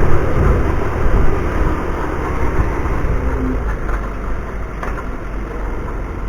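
A car's engine and road rumble as picked up by its dashcam microphone while driving, growing gradually quieter.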